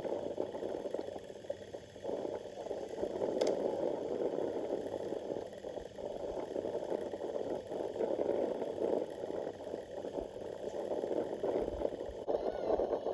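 Sea water sloshing and gurgling in a steady, churning wash with no clear breaks.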